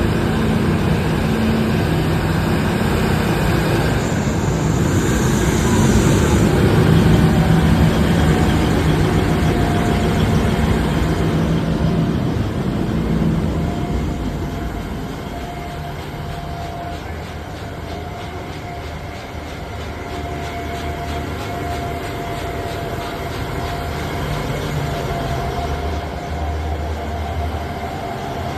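Terex RH340 mining excavator running, heavy and continuous. It grows louder for several seconds early on, then settles lower with a steady high whine.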